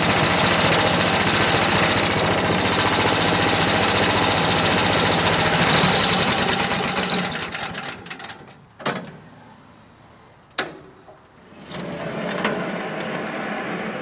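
Wood-Mizer LT10 sawmill's small gasoline engine running steadily, then dying down about seven seconds in. Two sharp knocks follow, and a quieter running sound comes back near the end.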